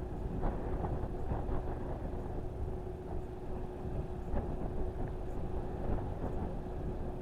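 Outdoor shoreline ambience: a steady low rumble of wind on the microphone and moving water, with a faint steady hum and a few small splashes.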